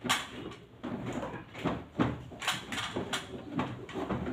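Irregular plastic clicks and knocks as the front cover of a wall-mounted Carrier split-type air conditioner is handled and pressed back into place.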